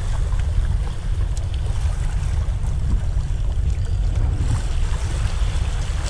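Wind buffeting the microphone in a steady low rumble, with small waves washing and splashing against the boulders of a rock breakwater.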